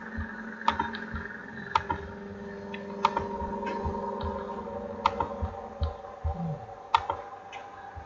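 Sharp clicks from a computer being operated, about one every second or two and often in quick pairs, over a steady electrical hum.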